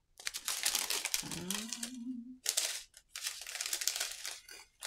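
Clear plastic packaging of a diamond painting kit, its drill bags, crinkling as it is handled, in three or four stretches of rustling with short gaps between them.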